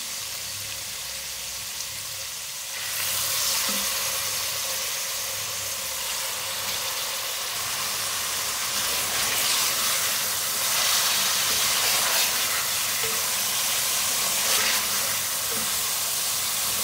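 Thin beef slices frying in hot oil with a steady sizzle, which gets louder about three seconds in as the meat goes into the oil.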